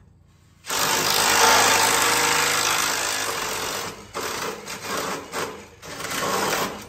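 A cordless drill running under load, boring with a long bit: it starts about a second in, runs steadily for about three seconds, then goes in several shorter bursts.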